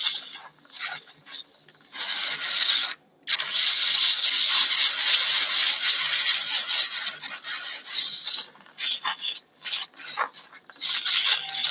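Surgical suction hissing and slurping as it draws saline lavage fluid out of the abdomen: short spurts, then a long steady hiss from about two seconds in, broken once briefly, then spurts again near the end.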